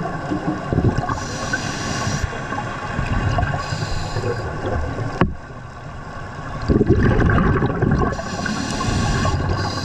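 Scuba diver breathing through a regulator underwater: hissing inhalations alternating with bursts of bubbling exhaust, with one sharp click about five seconds in.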